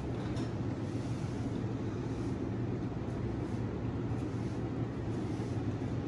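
Steady low machine hum, even throughout, with a couple of faint light clicks near the start.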